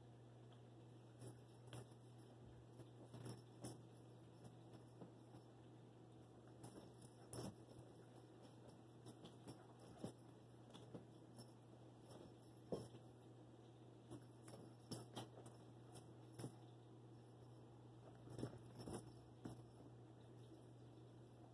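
Faint, irregular thumps and scuffs of a West Highland White Terrier's paws as it darts and pounces on a rug chasing a feather wand toy, over a low steady hum.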